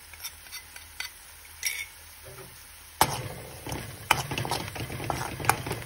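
Turmeric powder tipped onto onions frying in oil in a metal wok, with a faint sizzle and a few light clicks. About three seconds in, a steel spoon starts stirring, clinking and scraping against the pan over the frying.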